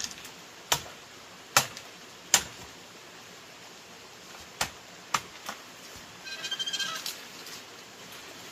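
Sharp knocks, four in the first two and a half seconds and three more about five seconds in, then a short, rapidly pulsed animal call about six seconds in.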